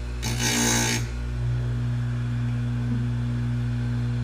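Tecomec FL-136 electric chain grinder's motor running with a steady hum; a moment in, the spinning grinding wheel bites into a link of a steel saw chain for under a second, a harsh hissing grind, then spins freely again.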